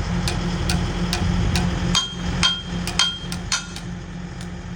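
Hammer blows on metal, irregular and a couple a second, the heaviest about halfway through with a brief metallic ring, over a steady low machine hum.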